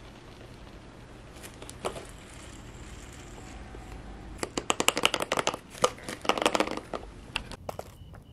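Penny skateboard's plastic deck and metal trucks being handled and adjusted as the trucks are loosened a notch: a few scattered clicks, then a run of rapid clicking and rattling lasting about two and a half seconds.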